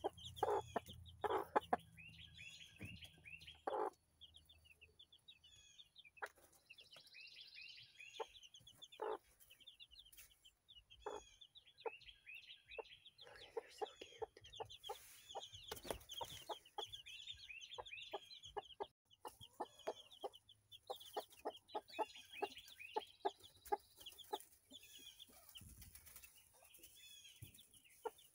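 Baby chicks peeping: many short, high chirps in quick succession. Their mother hen clucks among them in short, lower notes.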